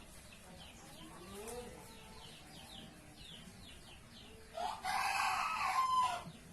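A rooster crows once, a loud call of about a second and a half near the end. Small birds chirp faintly and repeatedly underneath.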